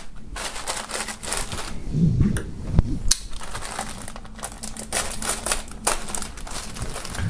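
Clear plastic bag around a folded T-shirt crinkling and crackling as hands pull it open and handle the shirt inside, with irregular sharp crackles and one louder click near three seconds in.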